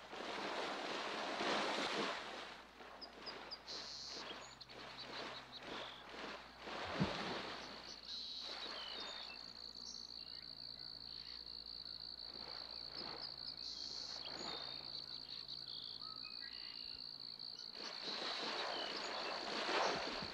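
Water splashing in bursts as deer run through a shallow stream, loudest near the start, about eight seconds in and near the end, with one sharp knock about seven seconds in. A steady, high insect trill sets in about eight seconds in, with a few short high chirps before it.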